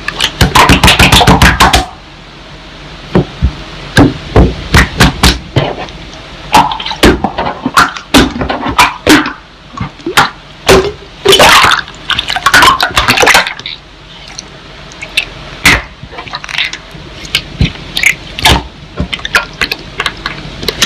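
Slime being played with: irregular sharp pops and clicks, some single and some in quick runs.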